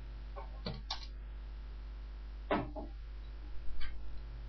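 A handful of scattered keyboard and mouse clicks, spread unevenly over a few seconds, over a steady low electrical hum.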